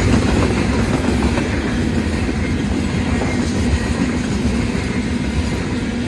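Freight train's loaded open-top cars rolling past on the rails, a steady loud rumble of wheels and cars.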